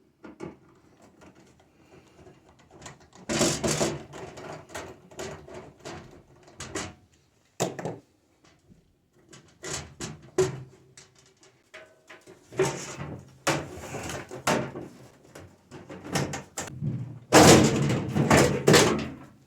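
The last screw is taken out of a Hamilton Beach microwave and its sheet-metal outer shell is worked off. This comes as several bursts of handling clatter, loudest near the end.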